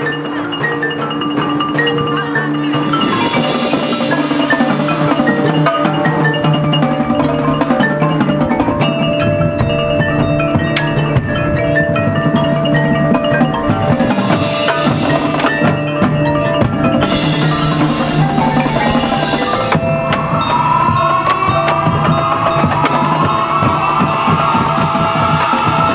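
Marching band playing, with mallet percussion (marimba, xylophone, bells) and drums over sustained wind chords. From about twenty seconds in there is a run of repeated rising pitch swoops.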